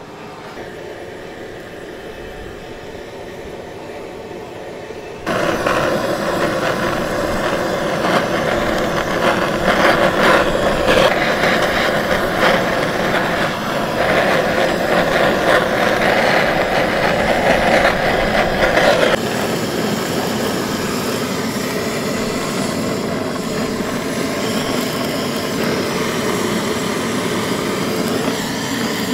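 Handheld butane blowtorch running with a steady hiss as its flame sears goat skin in a pan, starting abruptly about five seconds in and a little softer in the second half. Before it, a quieter steady background.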